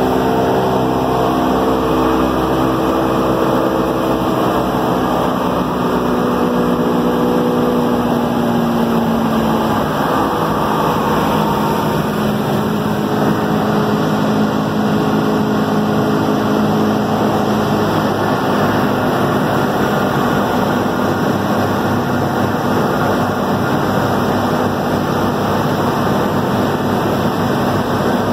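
A B-17G Flying Fortress's Wright R-1820 Cyclone nine-cylinder radial engines droning steadily in cruise flight, heard inside the aircraft's nose with the rush of airflow. The engine note sinks slightly over the first several seconds, then holds steady.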